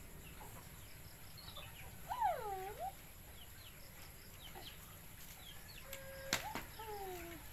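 Fowl calling in the background: faint high chirps throughout and two drawn-out calls that fall and rise in pitch. About six seconds in comes a single sharp snip of scissors cutting plastic packaging.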